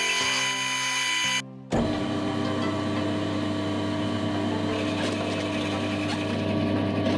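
A car engine running steadily at idle. It stops for a moment about a second and a half in, then comes back abruptly and holds an even tone.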